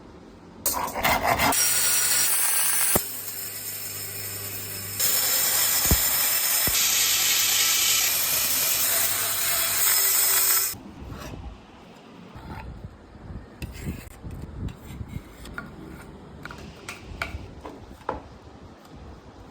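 Wood of an old cricket bat being sanded. For the first half it is a loud, even, hissing power-tool sanding noise, cut into a few short segments that start and stop abruptly. Then come quieter, irregular rubbing and scraping strokes with scattered knocks.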